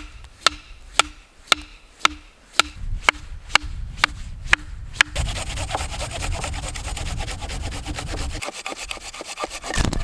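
About ten sharp, evenly spaced knocks, two a second, then from about five seconds in a folding pruning saw sawing continuously through a dead birch branch.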